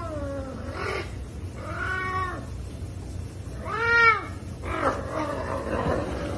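Savannah cat meowing loudly and repeatedly while begging for food, about four calls that each rise and fall in pitch, the loudest about four seconds in, followed by a rougher, noisier stretch near the end as it snatches the chicken.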